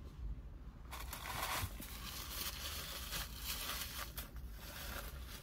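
Paper napkin crinkling and rustling as fingers are wiped on it, starting about a second in.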